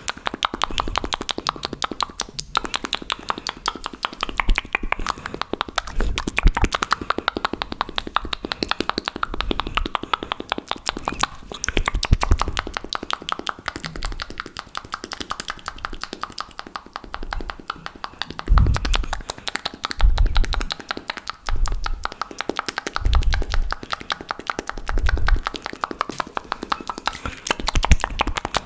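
Fast, aggressive wet mouth sounds close to the microphone: a rapid, continuous stream of tongue and lip clicks and pops. In the second half, several heavier low thumps come a second or two apart.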